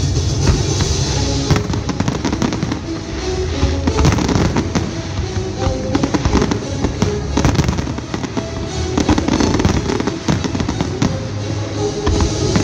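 Display fireworks shells bursting and crackling in rapid, overlapping succession, the bursts growing denser about a second and a half in, over music.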